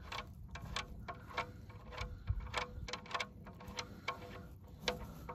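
Irregular light clicks and ticks, about three a second, with a slight ring, as the oil drain plug under the minivan is worked back in by hand and wrench.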